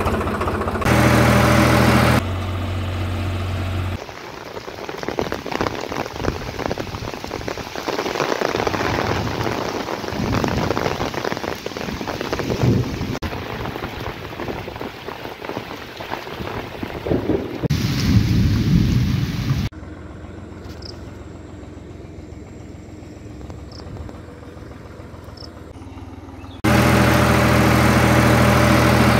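Swaraj tractor's diesel engine running steadily for a couple of seconds. Then heavy rain falls on a field for about fifteen seconds, with deep rumbles near its end, followed by a much quieter stretch. The tractor engine is heard running again near the end.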